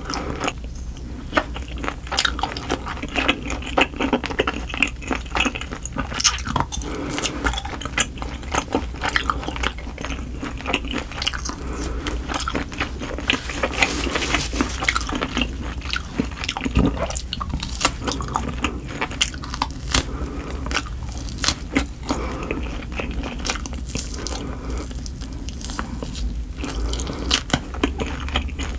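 Close-miked eating: a person chewing a mouthful of food, with many small sharp mouth clicks and wet chewing noises following one another quickly.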